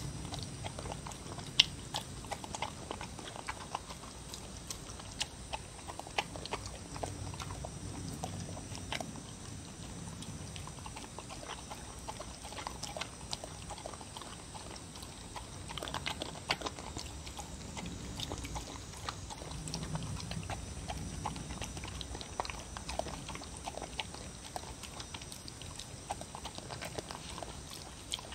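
Dog eating soup from a ceramic bowl: wet mouth sounds of lapping and chewing, with many irregular clicks of teeth and tongue against the bowl.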